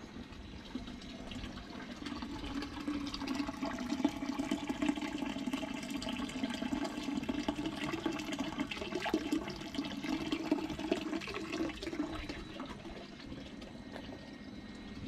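Water pouring steadily from an outdoor tap into a stone basin, growing louder about two seconds in and fading near the end.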